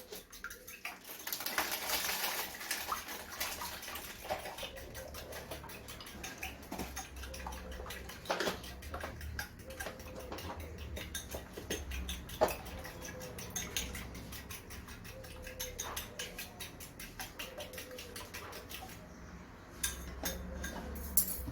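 Egg and oil being beaten in a bowl with a utensil: rapid, steady clicking against the bowl, thinning out near the end with a few louder knocks.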